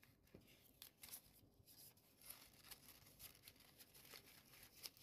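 Faint rustling and light clicks of stiff paper as origami units are handled and slotted together into a kusudama.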